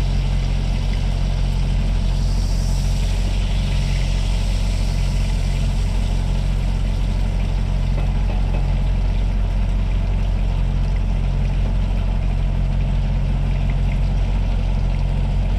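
Semi truck's diesel engine idling with a steady low drone, and tuna steaks sizzling faintly in a cast iron pan.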